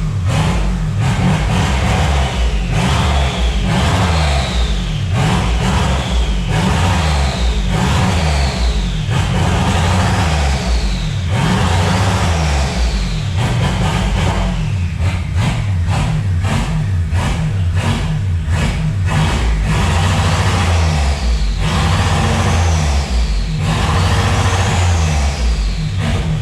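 Turbocharged car engine revved again and again, each blip of the throttle bringing a turbo whistle that rises and falls over about a second, over a heavy exhaust rumble.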